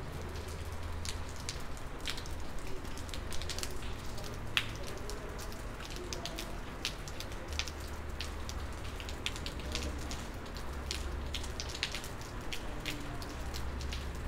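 Steady rain falling, with scattered individual raindrops ticking close by.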